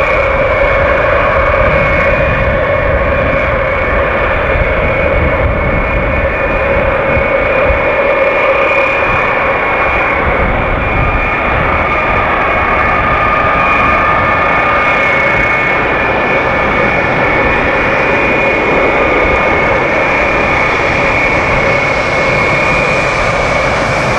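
Turbofan engines of a large military jet taxiing at low power: a steady engine whine in several tones over a low rumble.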